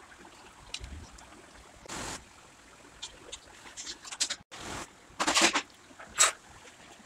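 Metal spoon scooping soft ice cream from a tub and dropping it onto a ceramic plate: a few short, separate scraping and wet squelching noises, with a sharper one near the end.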